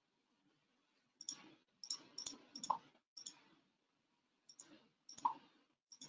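Computer mouse clicking: a string of short, sharp clicks at an uneven pace, some in quick pairs.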